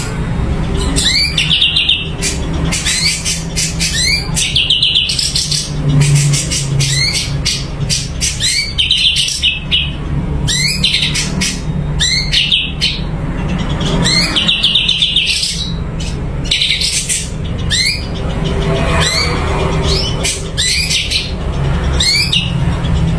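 Cucak cungko songbird singing persistently: short rising whistled notes, each followed by a fast, dense trill, repeated about every one to two seconds. A steady low hum runs underneath.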